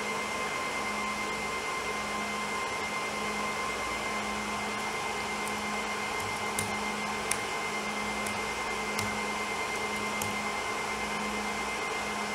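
Steady fan-like whir with a constant low hum. In the second half, about half a dozen faint clicks as keys are typed.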